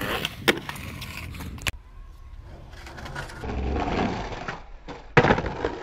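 Skateboard wheels rolling on concrete with sharp clacks from the board, then a loud slap of the board hitting the concrete about five seconds in.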